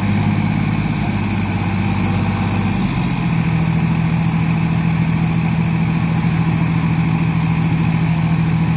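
Two diesel tractor engines running hard and steady as the tractors pull against each other, chained back to back in a tug-of-war. Their pitch changes about three seconds in.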